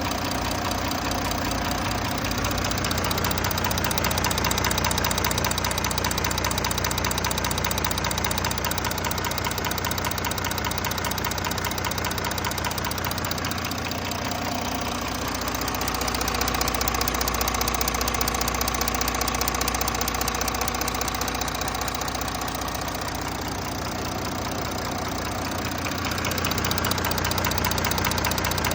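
Audi A4 B9's 272 PS 3.0 TDI V6 diesel engine idling steadily at operating temperature, with a light diesel clatter.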